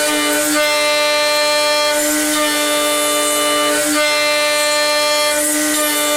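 Chinese-made high-speed milling spindle running at a steady, whining pitch while the cutter machines aluminium. A higher hiss of cutting swells and fades every few seconds.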